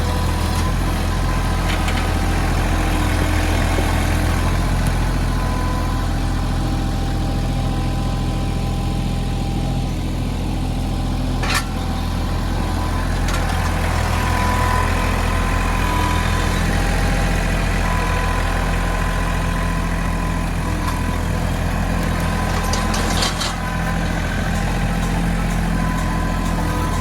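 Mahindra 1626 compact tractor's diesel engine running steadily, with a thin high whine over the drone. Two sharp knocks come through, one about halfway and one near the end.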